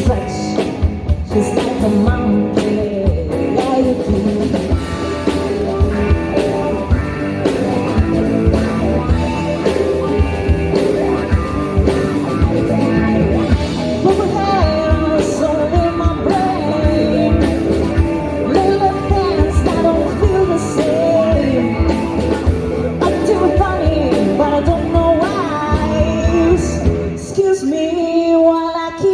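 Live rock band playing a classic rock cover, with singing, electric guitar, bass and drums. About 27 seconds in, the music breaks off briefly and starts again.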